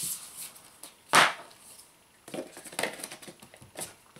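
Paper leaflets and a cardboard box being handled: rustling, a sharp tap about a second in, then a run of short rustles and taps.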